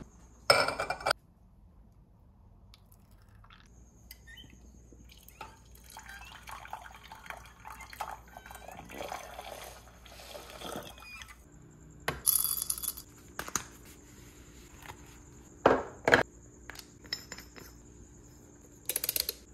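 Hot water poured into a ROK EspressoGC manual lever espresso maker and running through into a glass cup to preheat it, with several sharp clinks of glass and metal.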